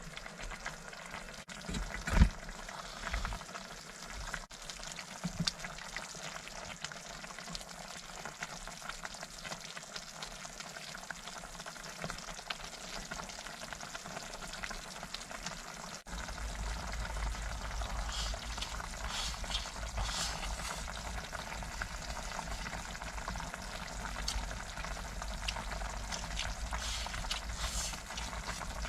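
A pot of cabbage, pork and tofu stew bubbling on a stove, a steady crackly simmer. A sharp knock about two seconds in, and from about halfway a low rumble joins underneath.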